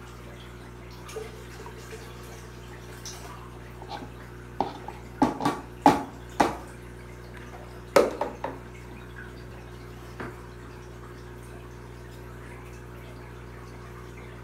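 Pieces of chopped mudfish splashing into aquarium water: a quick run of plops about five to six and a half seconds in, and another few about eight seconds in, over a steady low hum from the tank's equipment.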